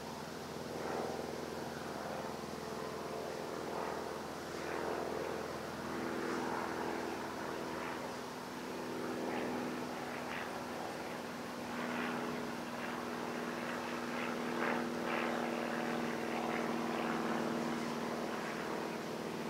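A steady engine drone of even pitch that swells and eases slightly in loudness.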